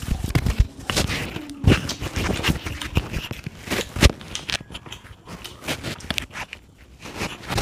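Close-miked wet eating sounds: fingers squishing and mixing water-soaked rice (panta bhat) in a ceramic plate, with mouth chewing. Many short wet clicks and crackles, busiest in the first half and sparser towards the end.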